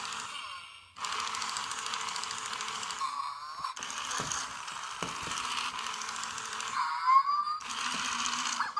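A Zhu Zhu Puppy toy dog's small motor and gears run with a steady whir as it drives across a tile floor. The whir stops briefly twice. The toy's electronic puppy sound plays as a short whining tone about three seconds in and a rising one about seven seconds in.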